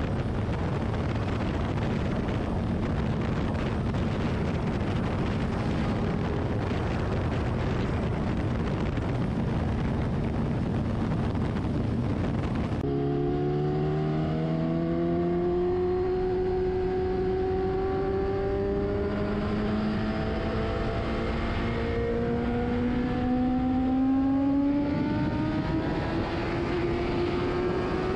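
Superbike at highway speed: steady wind rush and engine noise. About halfway through, after a cut, the engine note stands out clearly and climbs slowly as the bike accelerates.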